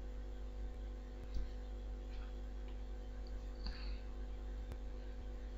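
Faint steady mains hum and room tone, with a few faint clicks.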